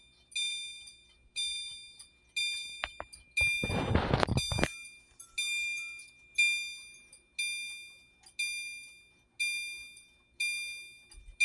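System Sensor CHSR chime strobe sounding in alarm after its pull station has been pulled: a bright electronic chime struck about once a second, each stroke ringing out and fading before the next. A brief burst of noise breaks in about four seconds in.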